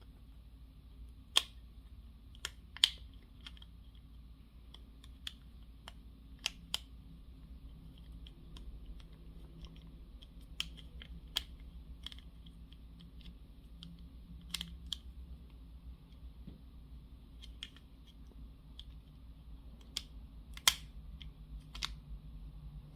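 Model-kit puzzle pieces being handled and fitted together: irregular light clicks and taps, a few sharper ones, over a steady low room hum.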